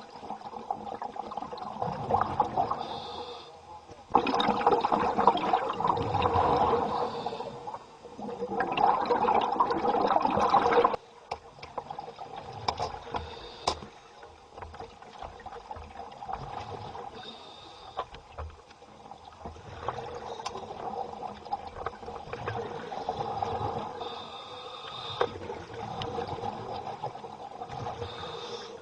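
Scuba diver breathing underwater through a regulator: rushing bursts of exhaled bubbles and gurgling water. Two long, loud bursts come about four and eight seconds in, then quieter gurgling with small pops.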